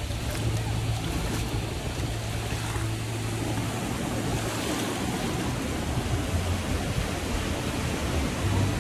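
Steady rushing noise with a low hum underneath, with no single event standing out.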